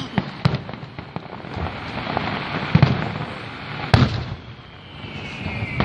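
Fireworks display: a series of shell bursts going off over a steady crackle, the loudest burst about four seconds in, with a falling whistle near the end.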